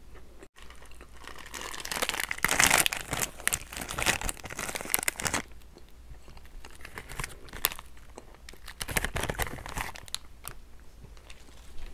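Plastic wrapper of a Cream-O cookie packet crinkling as it is handled, loudest from about two to five seconds in, with another burst of crinkling near the end.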